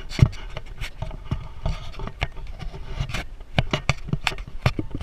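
Irregular clicks, knocks and rubbing of the camera being jostled close to the microphone as it is carried along at walking pace, with a sharp knock about a quarter second in.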